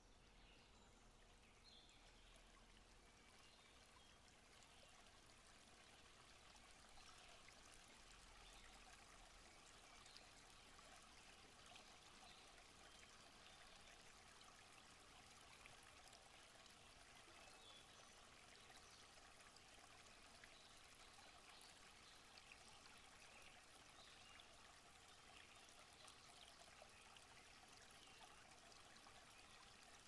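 Faint nature-sounds recording of steady rushing water, growing slightly louder over the first several seconds.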